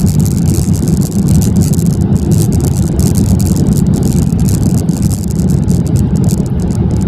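Loud, steady rumble of a Boeing 787-9 airliner heard from inside the cabin, with a crackling hiss over it that drops away right at the end.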